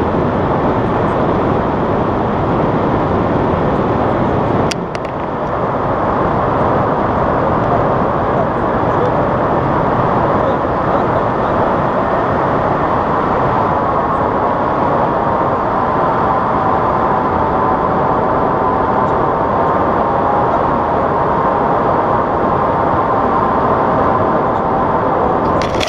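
Wind rushing over the action camera's microphone as a tandem paraglider flies: a loud, steady roar of wind noise. It dips briefly about five seconds in, and a faint wavering whistle-like tone joins around the middle.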